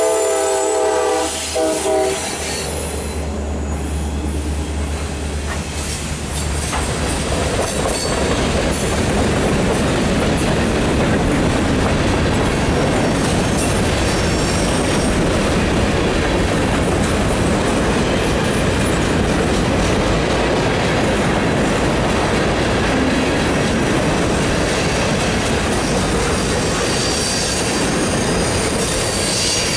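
A locomotive horn chord cutting off about two seconds in, with the low drone of the trailing EMD SD40-2 diesel fading as it passes over the next few seconds. Then a mixed freight train rolling by close to the track, steel wheels on the rails in a steady loud rumble with clacking.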